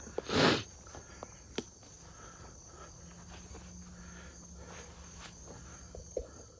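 Insects trilling steadily at a high pitch in the background. A short, loud rustling burst comes about half a second in, with a few light clicks after it.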